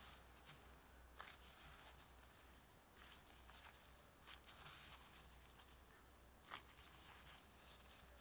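Faint soft rustling and squishing of a disposable-gloved hand pressing crumbly scone dough together in a glass bowl, with a few quiet clicks scattered through, the sharpest about six and a half seconds in.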